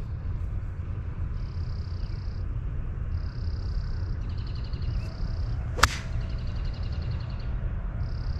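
Golf club striking the ball on an approach shot: a single sharp crack about six seconds in, over a steady low rumble.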